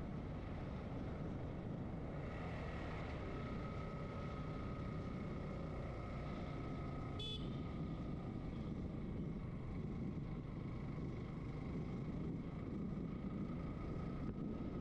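Motorcycle engine running steadily at cruising speed, mixed with wind rush on a helmet-mounted camera. A brief high chirp sounds about seven seconds in.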